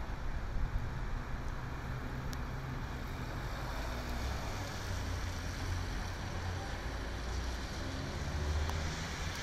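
Traffic on a rain-soaked city street: a steady low rumble under a hiss of wet road noise. A car's tyres swish past on the wet pavement near the end.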